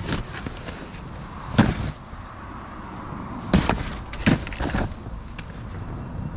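Corrugated plastic drainage pipe being handled and wrestled, with scraping rustles and a few sharp knocks, about three across the few seconds, over a steady outdoor noise.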